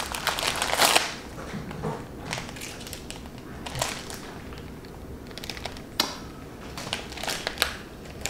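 Silver foil blind-bag packets crinkling as they are handled and torn open by hand: a dense crinkle for about the first second, then scattered short crackles, the sharpest about 2, 4, 6 and 7.5 seconds in.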